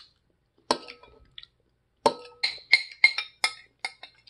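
A metal utensil clinking and scraping against a bowl while the last of the goulash is scooped out. There are two single clinks in the first second, then a quick run of about seven clinks, each with a brief ring.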